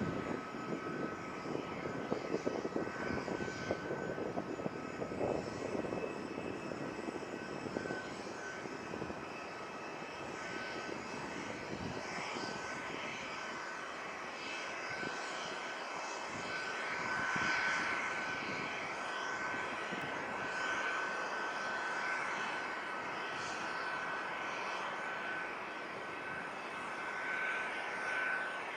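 Jet airliner engines: a continuous rushing rumble with a steady high whine. The low rumble is heaviest in the first few seconds, then eases.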